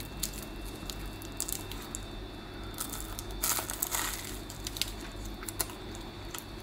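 Flaky sausage-and-cheese croissant with a crisp baked cheese crust crackling as it is handled, then crunching loudest as it is bitten into about three and a half seconds in.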